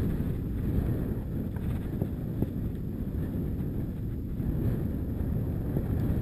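Wind buffeting an action camera's microphone as it moves along a rough dirt track, a steady low rumble with a few faint knocks from the bumps.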